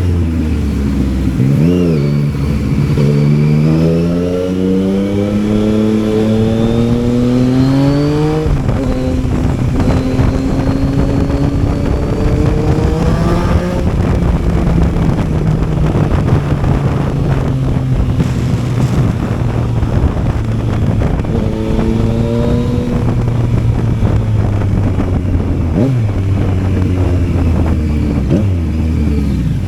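Yamaha Tracer 900's three-cylinder engine pulling hard through the gears, its pitch climbing for several seconds and dropping sharply at a shift about eight seconds in. It then runs at steadier, lower revs with brief throttle blips and lifts, over a constant rush of wind noise.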